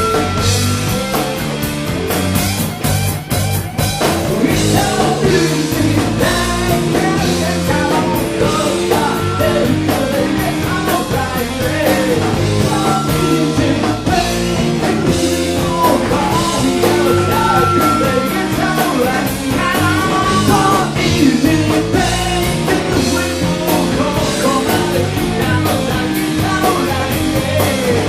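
Rock band playing live, with drums keeping a steady beat under guitar and bass, and some singing.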